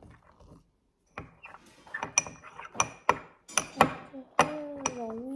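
A series of sharp clicks and knocks of small hard objects being handled, five or six separate hits. About four seconds in, a voice begins singing or humming a held, wavering note.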